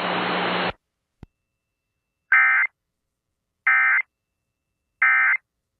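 Radio static with a low hum that cuts off under a second in, then three short, shrill digital data bursts about a second and a half apart: the Emergency Alert System end-of-message (EOM) signal closing a broadcast severe thunderstorm warning.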